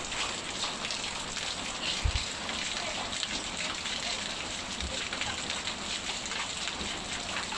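Steady rain falling, a dense patter of drops hitting a surface, with a dull low thump about two seconds in.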